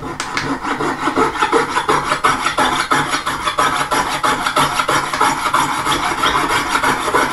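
Jeweller's piercing saw cutting through a piece of metal held against a wooden bench peg, the blade rasping in steady strokes about three times a second.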